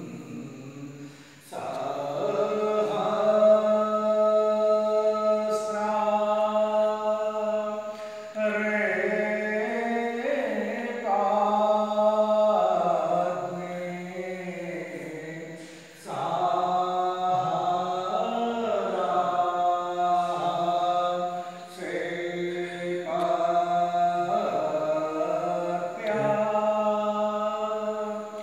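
Devotional Hindu aarti chant: a voice sings long, held phrases of several seconds each, with short breaks for breath between them.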